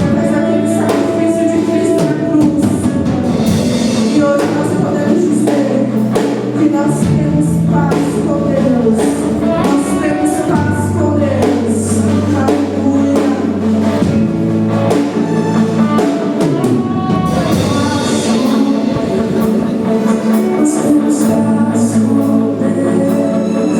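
Church worship band playing with singing over drums and sustained bass notes.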